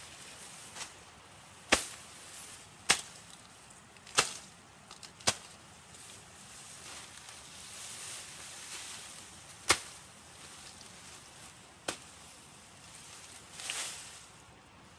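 Machete chopping through tall grass stalks: about seven sharp strikes, five of them in quick succession over the first five seconds and two more spaced farther apart, with the stalks rustling between cuts and a longer rustle near the end.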